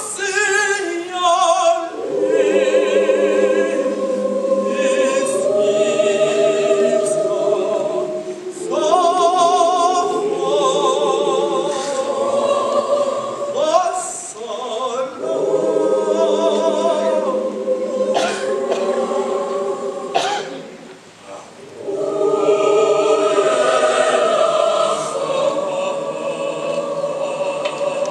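Mixed school choir of boys and girls singing, the voices wavering in pitch. The singing breaks off for about a second roughly three-quarters of the way through, then comes back in full.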